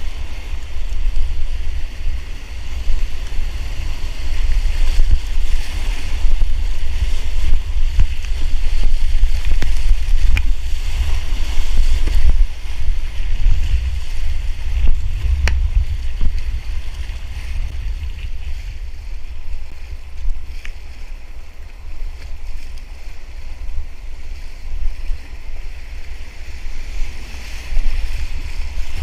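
Steady rush of class 2 whitewater rapids heard from a kayak in the current, under heavy wind rumble on the microphone, with a few sharp splashes from the paddle.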